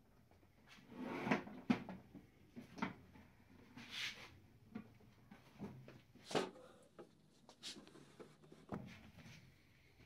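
Wooden nightstand being handled and its cabinet door opened and closed: a string of wooden knocks and clunks, the loudest about a second in.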